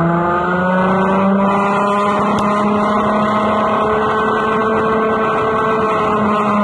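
Go-kart engine running at high revs under full throttle, heard close up from a camera on the kart; its pitch climbs steadily as the kart gains speed down a straight.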